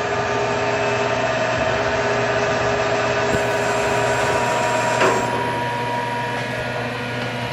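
2000 Atrump B5FC CNC milling machine running with its spindle turning at low speed while the axes are jogged: a steady mechanical hum and whine with several steady tones. There is a short clunk about five seconds in, after which it runs a little quieter.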